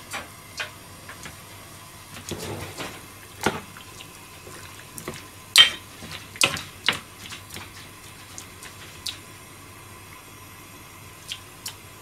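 Water poured from a glass into a frying pan of vegetables, with scattered sharp clinks and taps of glass and pan; the loudest clink comes about five and a half seconds in.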